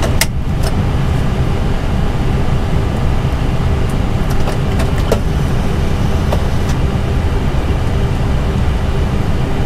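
Steady low rumble of air conditioning in an Airbus A320 cockpit with both engines shut down and APU bleed air on. A few sharp clicks come near the start and again around the middle.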